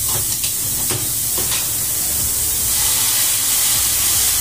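Chopped mushrooms sizzling steadily in a frying pan, with a few light knocks in the first two seconds as canned corned beef is tipped from its tin into the pan. The sizzle grows a little louder near the end.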